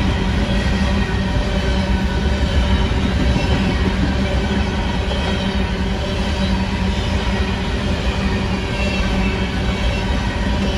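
Freight train of coal hopper cars rolling past close by: a steady, loud rumble of steel wheels on the rails.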